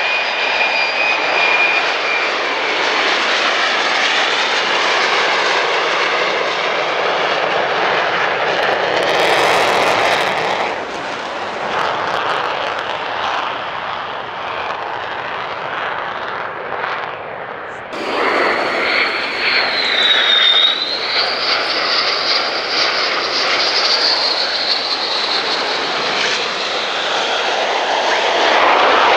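Military fighter jet engines in several cuts. First a pair of F-35A Lightning IIs on landing approach, with a steady whine that fades about two seconds in. Then a quieter, more distant F-35. After a sudden cut comes a louder twin-engine F-15E Strike Eagle at takeoff power, with a whistle that dips and then rises in pitch.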